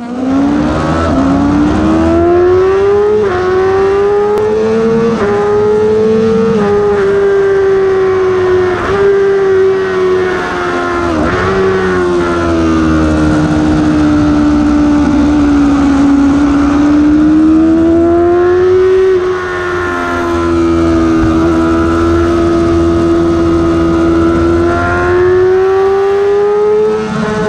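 Yamaha R6's inline-four engine at hard throttle, its pitch climbing in quick upshifts through the first seven seconds, dipping sharply for a moment about eleven seconds in and again near twenty, then rising once more near the end.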